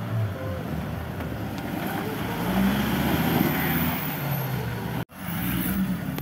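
Engine of a modified GAZ-69 off-road trial vehicle running hard under load as it crawls through mud and up a bank, growing louder in the middle. The sound drops out abruptly for an instant about five seconds in.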